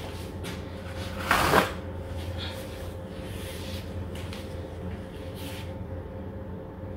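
A brief knock or clatter about one and a half seconds in, followed by a few fainter handling noises, over a steady low electrical hum.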